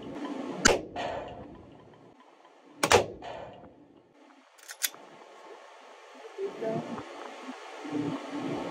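Two pistol shots, the first about a second in and the second about two seconds later, each sharp crack followed by a short echo. A faint pair of clicks follows near the middle.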